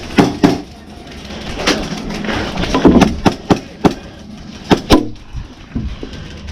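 Airsoft guns firing single shots: a dozen or so sharp cracks and knocks, irregularly spaced, some in quick pairs.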